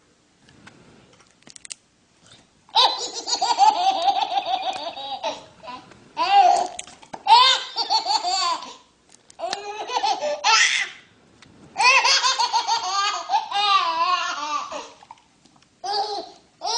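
A baby laughing hard, in about six fits of quick, pulsing belly laughs with short pauses between them. The laughing starts about three seconds in.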